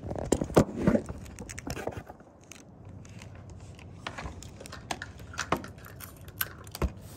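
A phone being set down on a tabletop, several sharp knocks and clatters in the first second, followed by scattered light clicks and taps of hands working at the table.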